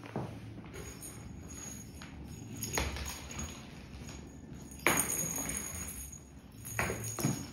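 Kittens running and pouncing on a tiled floor: soft footfalls with about four louder thumps spread through.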